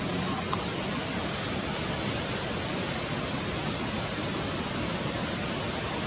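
Steady, even hiss with no distinct bird calls, and a faint click about half a second in.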